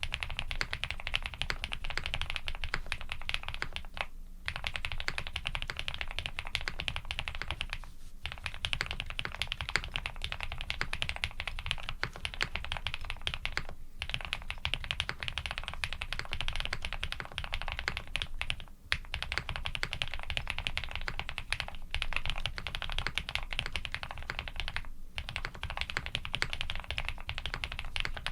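Fast, continuous typing on a Mr. Suit custom mechanical keyboard with Krytox-lubed Cherry-housing, Cream-stem linear switches on a POM plate under GMK keycaps, with short breaks every four to six seconds.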